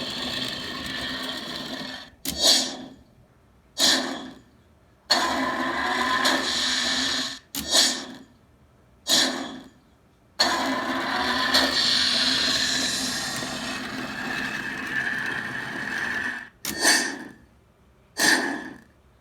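3D-printed Stargate replica dialing: the motor-driven ring whirs as it spins, stopping three times. After each stop come two sharp clunks that fade away, as chevrons lock.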